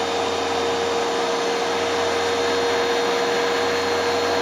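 Hoover Dual Power Max carpet cleaner running steadily: a constant motor whine with a strong steady tone over a rushing air noise.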